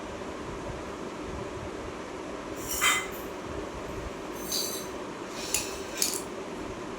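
Four short metallic clinks and scrapes, the loudest about three seconds in, over a steady background hum.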